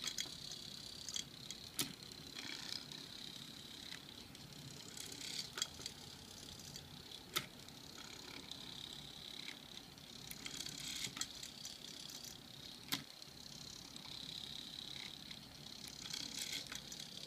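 Homemade walking robot with metal-strip legs, its small motors whining in stretches as it moves, with a few sharp clicks several seconds apart as the legs shift and the wooden feet tap the table.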